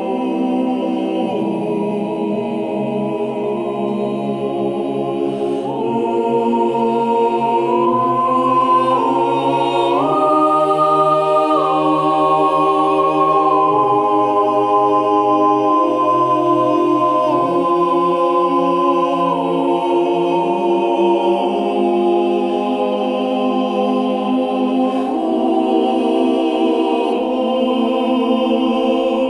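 Slow choral background music: voices holding long chords that change every few seconds, climbing to a high held note about ten seconds in and then settling lower.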